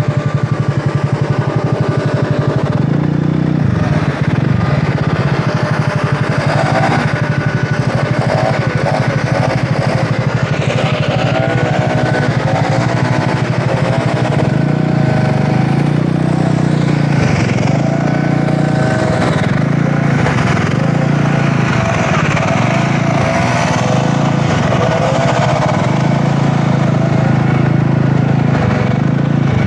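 Engine of a Wolf Rugby 150cc scooter running steadily at a slow crawl, heard close up from the bike, with its pitch wavering up and down through the middle stretch.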